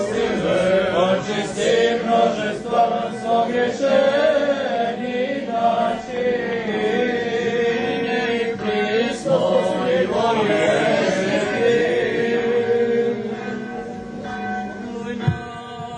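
Serbian Orthodox liturgical chant sung by several voices, with a church bell ringing irregularly over it. The singing grows quieter in the last few seconds, and there is a single thump near the end.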